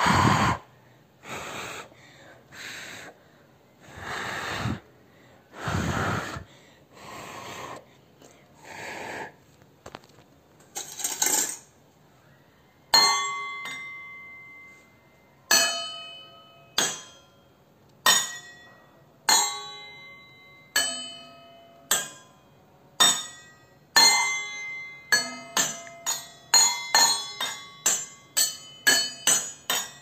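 Stainless steel tumblers, some holding water, struck one after another. Each strike rings with a clear metallic note, and the notes differ in pitch. The strikes come about every second and a half from about halfway, then quicken to several a second near the end. Before that there is a run of short breathy rushes, one about every second and a half.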